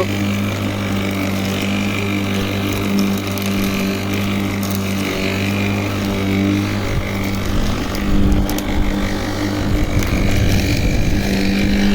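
Black & Decker 40 cm cordless battery lawnmower running with a steady electric motor hum and whine. A rougher low rumble joins about seven seconds in.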